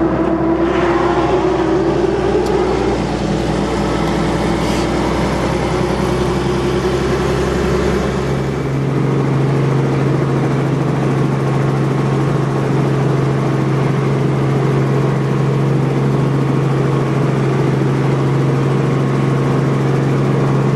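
Helicopter engine and rotor running with a steady drone; about eight seconds in, the low hum drops away and a higher steady tone takes over.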